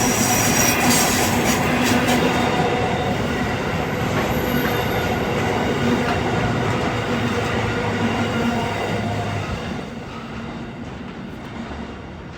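A train running through on the rails, wheels rolling with some high squeal, the noise dying away near the end as it moves off.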